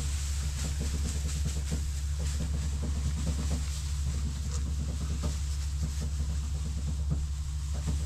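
A steady low rumble, with light rustling and crunching of loose straw being tossed and trodden across a yard.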